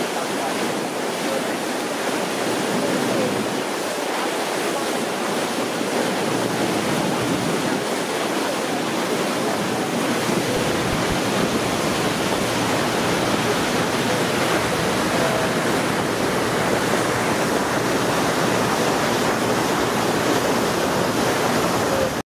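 Steady rush of wind and water aboard a moving passenger boat: wind on the microphone over the hiss of the boat's wake, with a deeper rumble coming in about halfway through.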